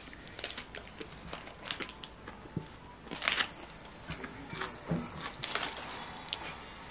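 Close-up eating sounds: chewing a sweet potato and egg sandwich, with its paper wrapper crinkling now and then as it is handled. There are short, crisp sounds several times with quiet chewing between them.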